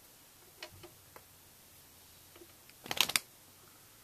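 Small clicks and taps of hands fitting a PCI Express card into a Mac Pro's expansion slots, with a quick cluster of louder clicks about three seconds in.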